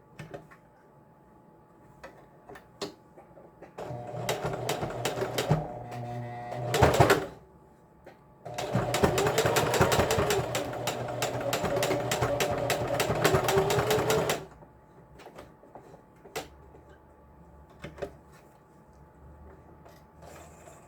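Electric sewing machine stitching in two runs: a short one of about three seconds, then after a pause a longer steady one of about six seconds, with a brief loud noise between them.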